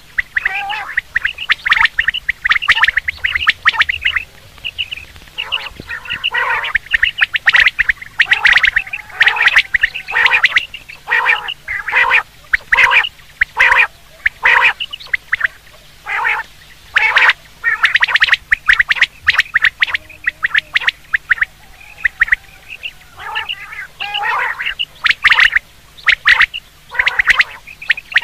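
Common quails calling: dense, overlapping runs of short, sharp calls, with a few brief lulls.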